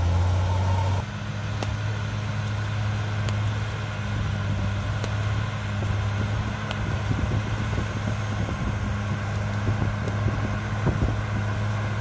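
CAT D6R XL bulldozer's diesel engine running steadily as the dozer pushes earth with its blade, with a few sharp clanks.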